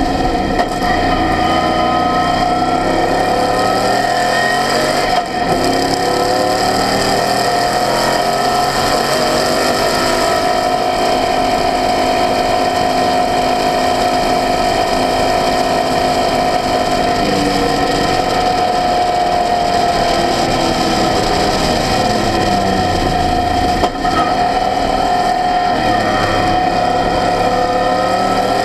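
Onboard sound of an Apexocet Formula 500 race car at speed: its two-stroke engine running hard, its pitch sweeping up and down through the corners. It holds a steady high note along a straight in the middle and dips briefly twice, about five seconds in and near the end.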